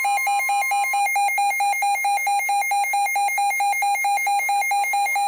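Weather radio alarm beeping rapidly in an even pulse, about five or six beeps a second, signalling a severe thunderstorm warning being received. Under it the steady 1050 Hz NOAA Weather Radio warning alarm tone ends about a second in.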